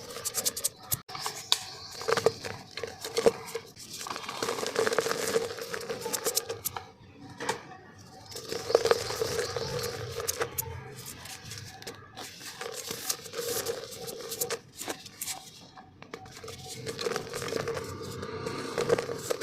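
Dry black mud dirt being crushed and crumbled in a clay pot: a continuous run of gritty crunches and crackles, rising and falling in loudness.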